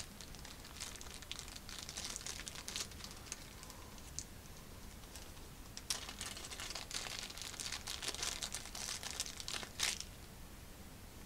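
Plastic packaging bag crinkling as it is handled, in two spells of rustling crackles, the second a little louder, near the end.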